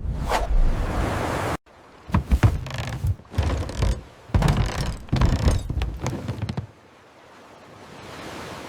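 Generated sound effects from a run of AI-made video clips, changing abruptly at each cut: a series of thuds and knocks, then a steady noise that swells slightly near the end.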